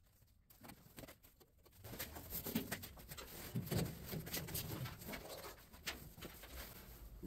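Handling noise from the cut-off steel roof of a 1953 Chevy truck cab as it is carried and set against the cab: after a quiet start, a run of light knocks, clicks and scrapes of sheet metal.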